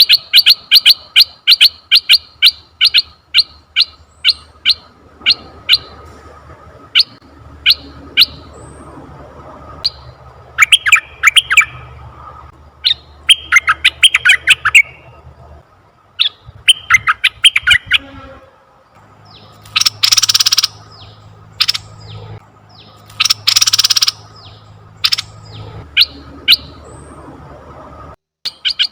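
Red-eyed bulbul calling: a fast, even run of short sharp notes, about four a second, then scattered notes and short chattering bursts, with two longer, harsh, noisy calls past the middle.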